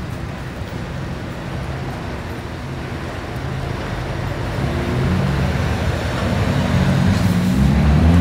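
Heavy-haul truck's diesel engine towing a multi-axle trailer loaded with a railway car, running at low revs under load. It grows louder, and its pitch climbs near the end as it speeds up.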